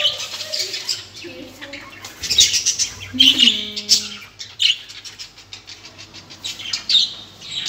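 Pet budgerigars chirping and chattering in short, scratchy bursts, several times over the few seconds.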